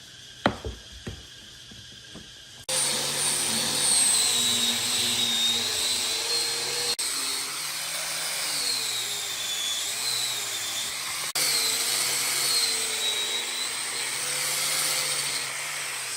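A few light knocks, then a handheld electric power tool running, its pitch rising and falling as the load on it changes while it works the wood.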